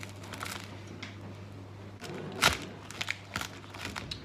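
Knife cutting into crisp roast pork belly on a board: a few sharp cracks and knocks, the loudest about halfway through, over a steady low hum.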